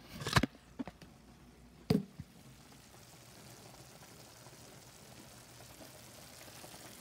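A couple of sharp knocks in the first two seconds, then ground beef frying in a cast-iron skillet with a faint, steady sizzle.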